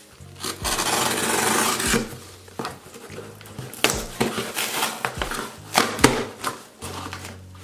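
Cardboard shipping box being cut open: a long scraping rasp as the tool slits the packing tape, then rustling and a few sharp knocks as the cardboard flaps are pulled open.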